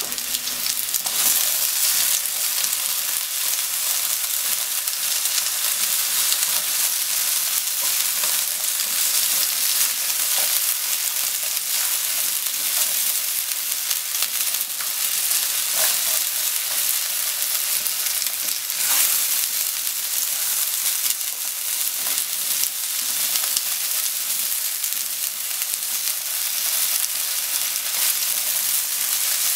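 Sliced potatoes sizzling steadily in hot oil in a frying pan while they are stirred and turned with wooden chopsticks, with a few light clicks.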